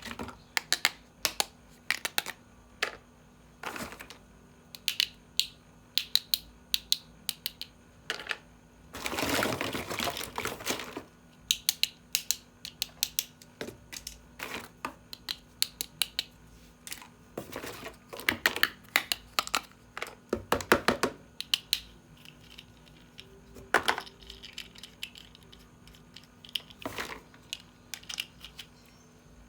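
Plastic toy pieces and packaging being handled: many sharp clicks and taps in irregular clusters, with a denser scratchy stretch lasting about two seconds, about nine seconds in.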